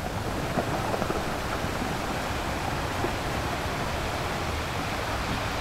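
Steady rushing beach ambience, an even noise of sea and wind without any distinct events.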